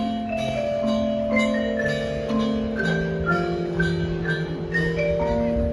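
Marching band music: long held chords under a melody of struck mallet-percussion notes that ring and fade, with drums underneath.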